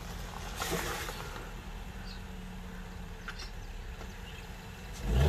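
Fiat Strada's 1.3 Firefly four-cylinder engine running steadily at low revs as the pickup creeps down a dirt slope, with a louder low rumble near the end.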